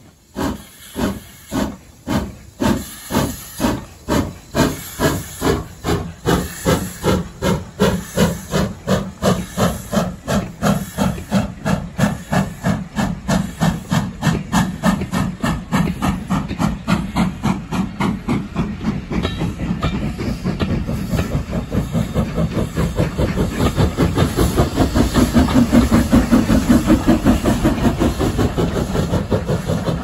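Steam locomotive exhaust beats with steam hissing as an Ivatt 2MT 2-6-2 tank engine pulls away with a train. The chuffs quicken from under two a second to about four a second. Near the end the exhaust of the rear banking engine, a Hunslet saddle tank, comes in and the sound is at its loudest.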